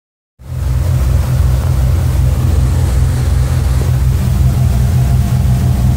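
Cabin cruiser's inboard engine running steadily under way, a loud low rumble with a pulsing beat, over the rush of wind and water. It starts about half a second in.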